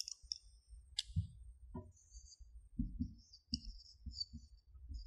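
Faint clicks and short squeaks of a marker pen on a whiteboard, with a few soft knocks; one sharper click about a second in.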